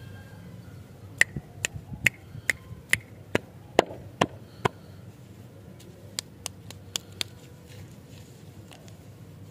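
A run of sharp clicks, about a dozen at irregular spacing over three and a half seconds, then four more after a short pause.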